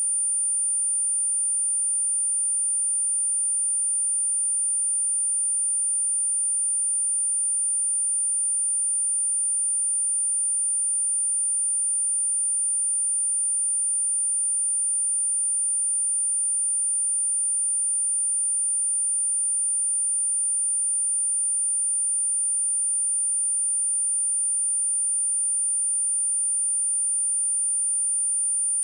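A steady, high-pitched 9236 Hz sine-wave test tone, one pure pitch held unchanged at a constant level, used as a speaker test and speaker-cleaning tone.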